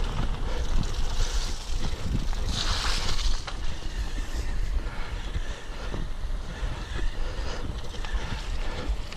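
Bicycle riding over a rough forest dirt track: wind buffeting the microphone over tyre rumble and the rattle and knocking of the bike, with a louder hiss about three seconds in.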